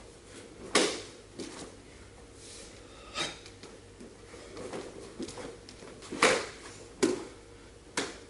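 Sharp snaps and thuds from a karateka's techniques: the gi cracking and bare feet striking the wooden floor. A loud one comes about a second in and three more in the last two seconds, with fainter ones between.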